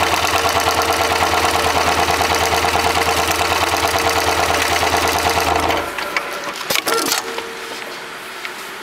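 Hightex 72008CS heavy-duty automatic sewing machine running at a steady fast stitch rhythm, sewing a shoe sole with thick thread. It stops abruptly about six seconds in, followed by a few sharp clicks and knocks.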